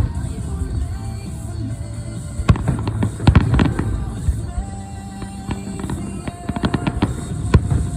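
Aerial fireworks going off: sharp bangs and clusters of crackling reports, densest about a third of the way in and again near the end, over background music.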